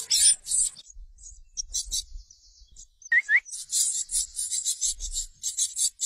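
A brood of nestling parrots begging for food, a dense high-pitched chattering of many chicks at once. It thins out almost to nothing for about two seconds in the middle, then two short rising peeps start it up again and it runs dense to the end.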